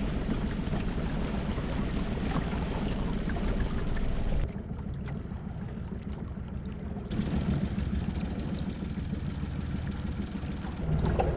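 40 hp outboard motor running steadily at trolling speed, a low even hum, with water and wind hiss over it that drops away for a few seconds about halfway through.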